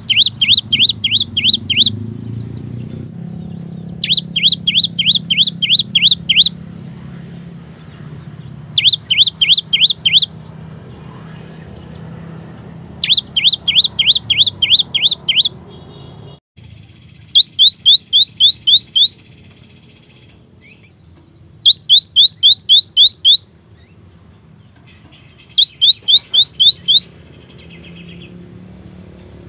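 Cinereous tit (gelatik batu) singing: seven phrases of quickly repeated whistled notes, each note sliding down in pitch. Each phrase lasts one to two seconds, with a pause of a few seconds between phrases.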